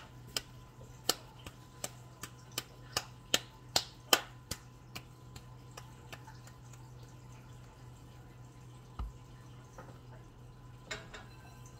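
Sticky gingerbread dough being squeezed and pressed between bare hands, making a run of sharp wet clicks about two or three a second, which thin out to a few scattered ones after about five seconds.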